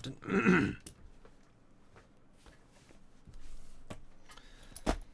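Handling of trading-card boxes and packs on a table: faint clicks and rustles, with a sharp knock near the end.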